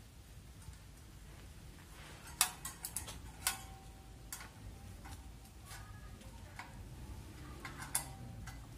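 Irregular sharp metallic clicks and clinks of a ring spanner, pliers and bolts against a wire basket and a motorcycle's front number-plate bracket as the bolts are fitted and tightened. The loudest clicks come about two and a half and three and a half seconds in, several with a short metallic ring.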